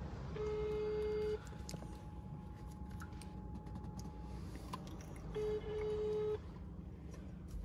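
Telephone ringback tone from a phone on speaker: two steady one-second beeps about four seconds apart, the outgoing call ringing at the other end and not yet answered.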